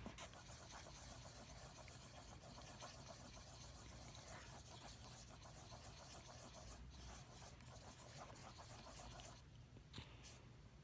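Faint scratchy rubbing of a pencil stirring food colouring into a lump of soft dried soap, which eases off near the end.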